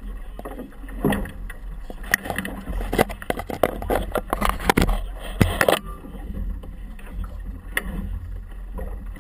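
Choppy water splashing and slapping against a small boat's hull as it moves, in a busy run of splashes from about one to six seconds in, over a steady low rumble.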